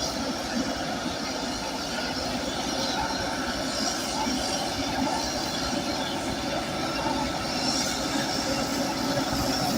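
Bulldozer at work: its diesel engine runs steadily under load while the steel crawler tracks squeal and clank.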